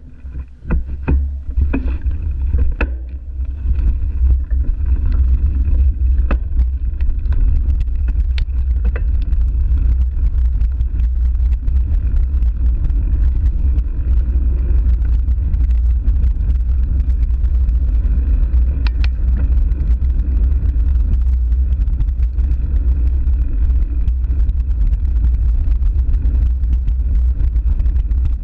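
Wind and riding rumble on the microphone of a camera on a moving mountain bike: a loud, steady low rumble that settles in after about three seconds, with scattered knocks and rattles from the bike going over the dirt path, most of them in the first few seconds.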